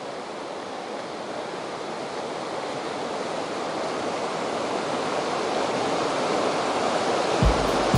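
Rushing river rapids, a steady white-water roar that grows gradually louder. Near the end a low music beat comes in.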